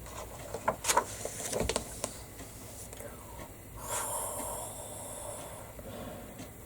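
A few soft taps and rustles, then about four seconds in a long, breathy snoring sound made by a person's voice, acting out a sleeping skeleton.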